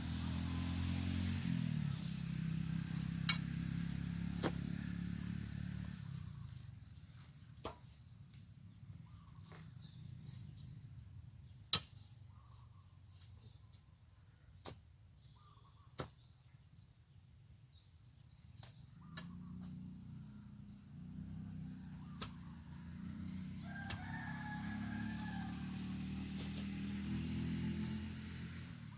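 A rooster crows once, about two-thirds of the way through, over a low steady hum that fades out early and returns later, with scattered sharp clicks.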